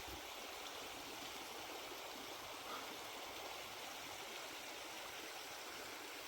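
River water flowing over a shallow, low stretch: a steady, even rush of running water.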